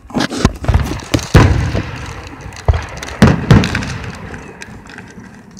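Aerial firework shells bursting: a string of booms and bangs, loudest about a second and a half in and twice more around three seconds in, each trailing off in echo.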